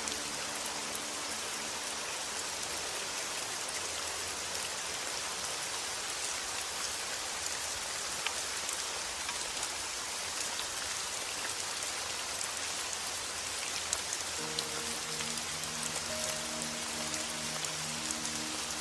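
Steady rain falling, an even hiss with scattered fine drop ticks. Faint soft sustained music notes sit under it at the very start and again from about three-quarters of the way in.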